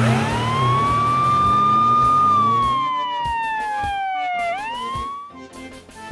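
Police siren wail: one tone sweeps up quickly, holds high for about two seconds, slides down over the next two, then sweeps back up briefly and cuts off. A low vehicle engine rumble runs underneath and fades out about halfway.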